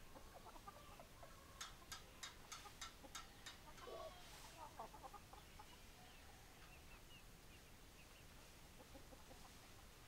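Chickens clucking quietly while foraging. About a second and a half in comes a run of about seven sharp clicks, roughly three a second, followed by a few short low clucks around the middle and faint high peeps later on.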